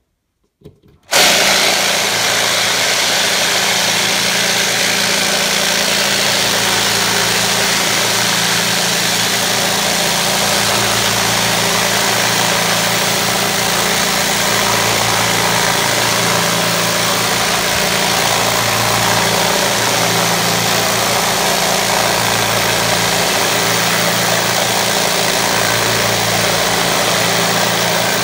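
Ultra Vibe 10 vibratory rock tumbler starting about a second in and then running loud and steady with its bowl open. The sound is a low motor hum under a constant churning hiss from a load of agates working in pre-polish grit slurry.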